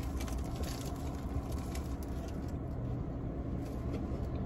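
Steady low rumble of a car cabin, with faint crinkling of foil burger wrappers and chewing in the first couple of seconds.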